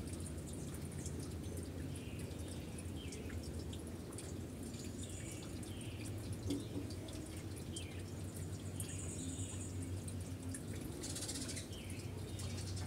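Steady low machine hum, with faint short high chirps repeating every second or so.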